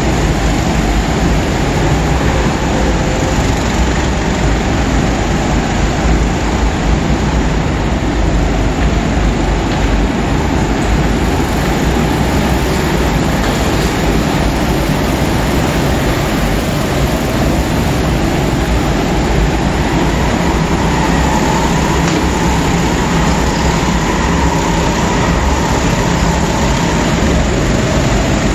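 Several go-karts racing in a large indoor hall, their engines making a steady, loud mechanical drone, with single karts faintly rising and falling as they pass.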